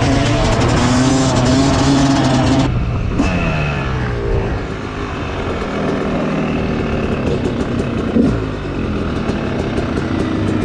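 Two-stroke dirt bike engine, a 2019 Yamaha YZ250, running as it is ridden along the road. The revs fall away about three seconds in and pick up again later.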